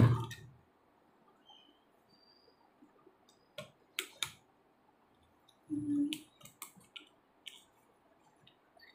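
Hands stretching a rubber balloon over the neck of a plastic bottle: scattered sharp clicks and crackles of rubber and plastic being handled, with a thump right at the start and a short low sound about six seconds in.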